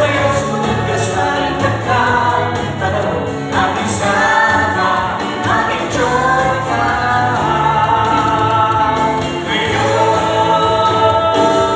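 A woman singing into a handheld microphone, her voice carried by a sound system over musical accompaniment; she holds one long note over the last few seconds.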